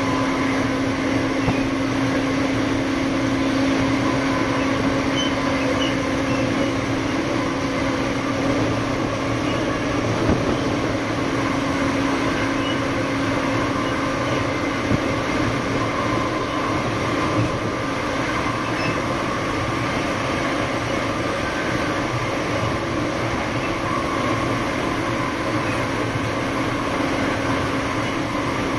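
Siemens Charger locomotive with its Cummins QSK95 V16 diesel engine running at a steady pitch: a continuous drone with a few steady tones, and a couple of faint knocks.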